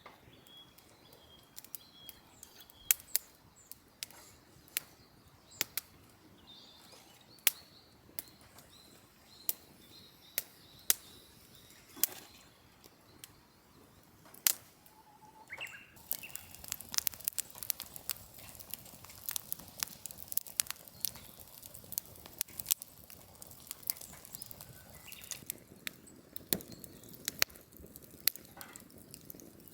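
Wood fire crackling, with scattered sharp snaps and pops that turn into denser, busier crackling over a hiss about halfway in as the fire takes hold. A faint bird call is heard near the start.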